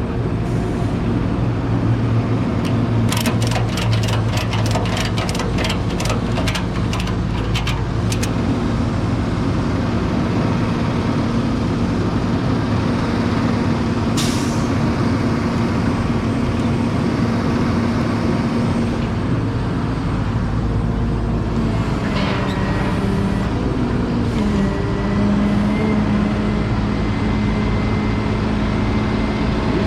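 Tow truck engine running steadily. About 3 to 8 s in there is a quick run of clicks, a short hiss of air comes about 14 s in, and the engine note steps down twice near the end.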